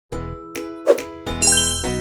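Intro music: a quick run of bell-like jingle notes over a low bass note.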